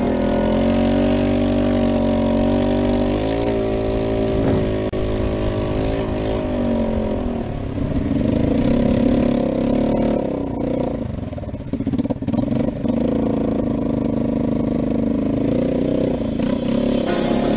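ATV (four-wheeler) engine running while being ridden, its pitch rising and falling several times as the throttle is worked.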